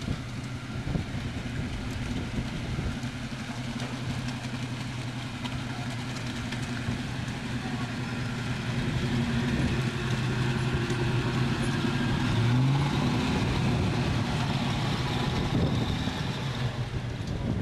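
Land Rover 101 Forward Control's V8 engine running steadily as the truck drives over rough ground, getting louder about two-thirds of the way through as it comes close, with a brief rise in engine pitch.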